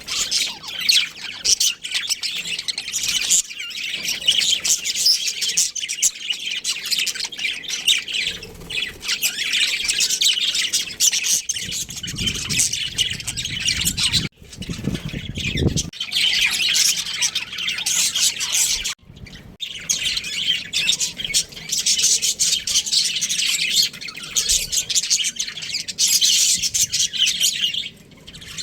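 Budgerigars chirping and chattering continuously, a dense mix of quick high-pitched tweets and squawks, with a low rumble for a few seconds about halfway through.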